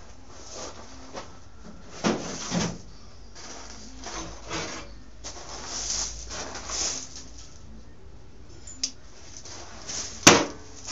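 Irregular scraping and rubbing of metal handle parts being handled and fitted, with one sharp knock about ten seconds in.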